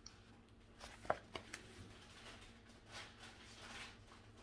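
Faint handling of a paperback book: pages rustling as they are flipped, with a few soft clicks about a second in.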